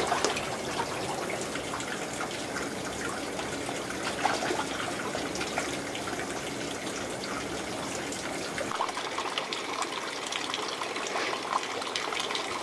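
Spring-fed water running and trickling steadily into a frog-holding tank, with a few light knocks.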